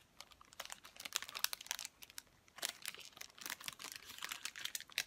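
Plastic food wrapper crinkling in the hands around a bun being eaten, in two runs of rapid crackles: one from about half a second in, and a second from under three seconds in until near the end.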